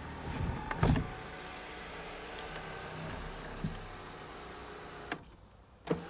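Power sunroof motor of a 1998 Nissan Altima running steadily as the sunroof slides open, with a thump about a second in. The motor stops with a click about five seconds in, and another click comes just before the end.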